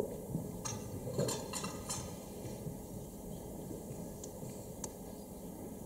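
A handful of light clinks and knocks come close together about a second in, and two fainter ticks follow later. They come from an actor moving about a stage set with tableware.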